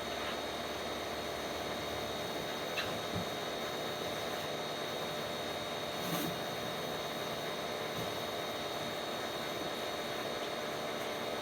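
Pressure washer running steadily: a continuous spray hiss over a steady machine hum, with a few faint knocks.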